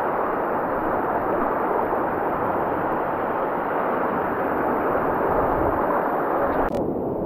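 Mountain stream rushing through a rocky gorge, a steady loud wash of water. Near the end the higher hiss of the water drops away abruptly.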